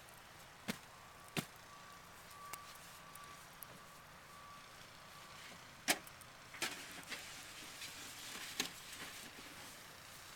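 Snow shovel working heavy, wet snow on concrete: a few sharp knocks of the blade, then a busier run of knocks and scraping from about six and a half to nine seconds in.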